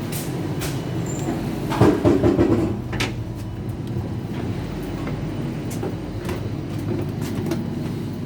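Regional passenger train running, a steady low rumble with scattered clicks and knocks, and a louder clatter about two seconds in.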